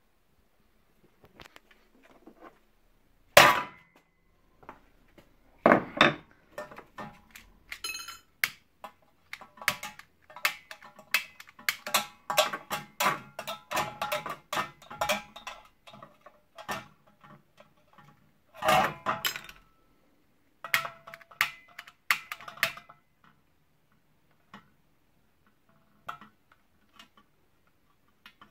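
Metal clinking and clattering as a butane gas cartridge and metal tongs are handled and knocked about on a wooden workbench. The knocks come in irregular runs, with a few louder bangs, about three seconds in, near six seconds and near nineteen seconds.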